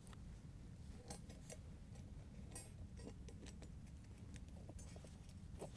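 Faint, scattered light clicks and taps of small parts being handled while a washer is fitted onto a refrigerator ice auger's shaft.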